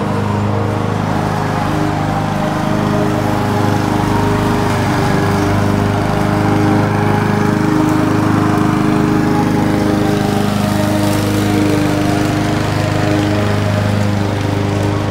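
Walk-behind lawn mower running steadily.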